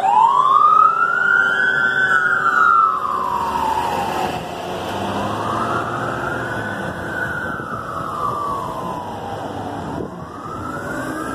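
Emergency vehicle siren in a slow wail, starting suddenly and rising and falling about every five seconds, loudest at first, over the steady hum of passing traffic.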